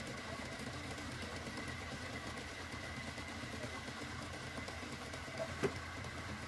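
Wood lathe running with a steady hum and a thin constant whine, with one sharp click about five and a half seconds in.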